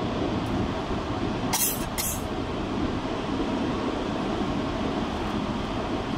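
Car driving on a wet highway in heavy rain: a steady rumble of tyres and rain noise, with two brief sharp sounds half a second apart about one and a half seconds in.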